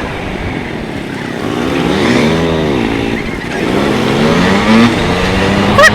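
A vehicle engine revving: its pitch sweeps up and back down about halfway through, then climbs again and holds near the end.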